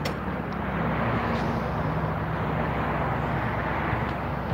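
Steady low hum and rumble of a running vehicle engine.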